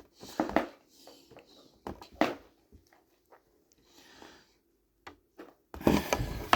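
Action-figure packaging being handled and opened: scattered light taps and scrapes on cardboard and plastic, a soft rustle about four seconds in, and a louder burst of rustling near the end.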